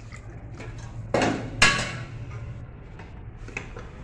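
Metal cookware clanking in a kitchen: two sharp knocks about half a second apart, then a lighter tap near the end, over a faint low hum.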